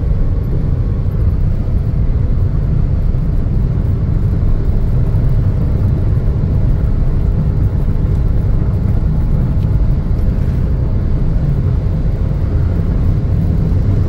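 Steady low rumble of engine, tyre and wind noise heard inside the cabin of a Toyota Raize 1.2 manual compact SUV cruising in fifth gear at highway speed.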